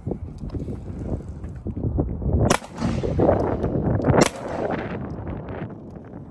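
Two 9mm pistol shots from a Sig P320 M17, about a second and a half to two seconds apart, each followed by a brief echo.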